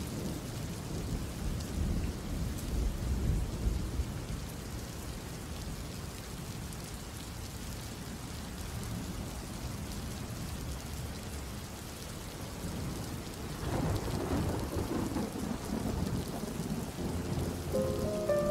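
Steady rain with rolls of thunder, one rumbling in the first few seconds and another about fourteen seconds in.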